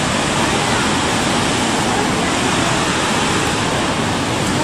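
Steady rushing roar of the waterfalls on the Gooseberry River.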